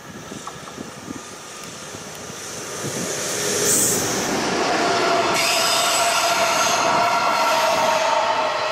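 EH200 electric freight locomotive and its container wagons passing close by, getting much louder over the first four seconds, then a steady loud rumble of wheels on rail. From about five seconds in, several steady high-pitched tones ring over it.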